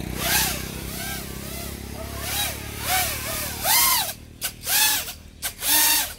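FPV quadcopter's brushless motors and DalProp Fold 5.1 folding propellers whining in repeated throttle bursts as the drone flips and rolls. Each burst rises and falls in pitch, roughly every second, and the bursts grow louder about halfway through as a low steady hum underneath fades.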